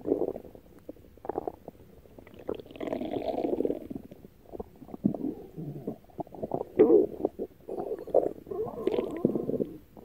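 Stomach growling: an irregular run of gurgles and rumbles with short pops, in longer stretches about three seconds in and again near the end.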